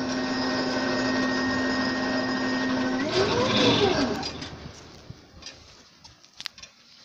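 Electric machine motor humming steadily at one pitch. About three seconds in, the pitch swoops up and back down as it winds down, and the sound fades away over the next two seconds, leaving a few faint clicks.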